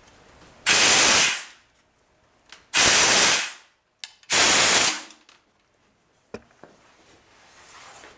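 Compressed-air blow gun giving three short blasts, each under a second, blowing dirt out of the glow plug wells of a diesel engine to clean them before the glow plugs are removed. A single small click follows near the end.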